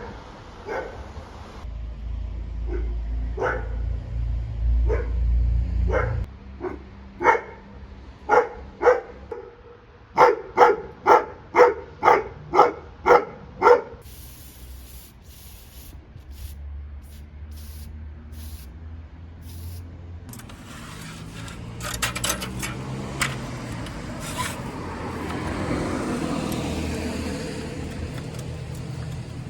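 A dog barking over and over, ending in a quick run of about eight barks, about two a second. Scattered clicks and rustling follow later on.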